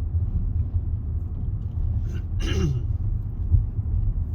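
Steady low road and engine rumble heard inside a car's cabin while driving slowly, with a brief voice sound about two and a half seconds in.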